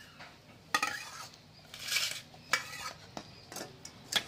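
A few sharp clinks of steel bowls and a brass plate being handled, with a short rustling scrape near the middle.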